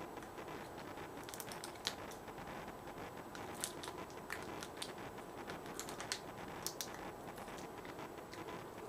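Faint scattered small clicks and light handling noises of hands working a tire plug and its insertion tool.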